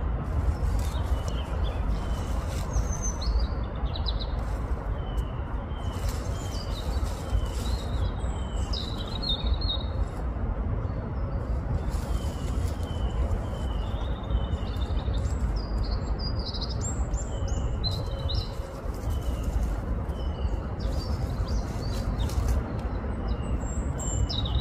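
Small songbirds chirping, many short falling notes repeated again and again, over a steady low rumble, with scattered short scratchy rustles.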